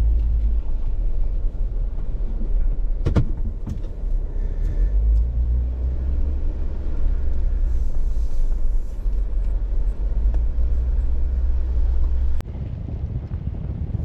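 Jeep Wrangler JK driving on a forest trail: a steady low rumble with a few sharp clicks about three seconds in. The rumble drops off suddenly near the end.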